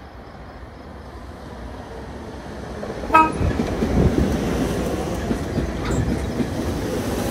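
A train approaching and passing close by. A low rumble builds over the first three seconds, a short horn toot sounds about three seconds in, and then comes the loud rumble and clatter of the passing train's wheels.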